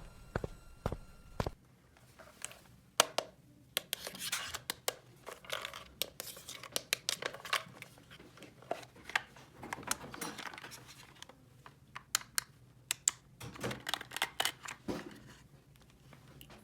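Toy packaging being handled and torn open: bursts of rustling and tearing broken up by many small sharp clicks of light plastic pieces.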